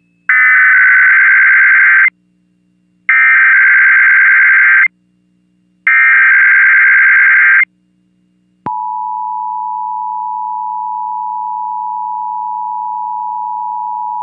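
Emergency Alert System SAME header: three bursts of rapid warbling digital data tones, each about two seconds long with a second's gap between them. About a second after the last burst a click opens the steady two-tone EAS attention signal (853 and 960 Hz), which holds unbroken, the start of a coordinated monthly test alert.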